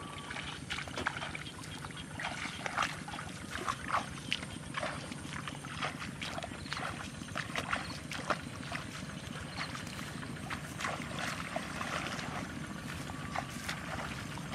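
Bare feet wading through shallow water and wet rice stubble in a flooded paddy: irregular sloshing, splashing steps with rustling straw.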